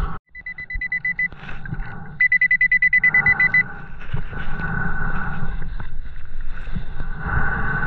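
Nokta Pulsedive underwater metal detector beeping in a high tone, its alert for metal under the coil: a run of quick beeps about a third of a second in, then a louder run of about ten beeps a second from about two seconds in, lasting about a second and a half. A steady low underwater rumble and swirl runs beneath.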